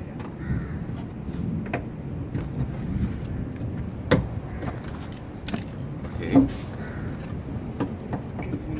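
Scattered knocks and rubbing from a hand working inside a car door cavity, against the door panel and window mechanism, over a steady low rumble. The clearest knocks come about four and five and a half seconds in, with a dull thud a little after six seconds.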